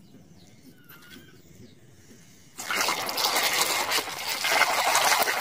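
A hand sloshing and swishing through a basin of foamy, muddy water, starting about halfway in after a quiet stretch.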